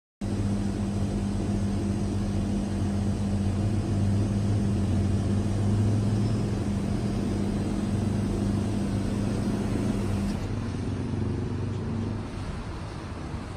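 Steady drone of city road traffic heard from high above the streets, with a low hum under it; it starts abruptly, then drops in level about ten seconds in and again near the end.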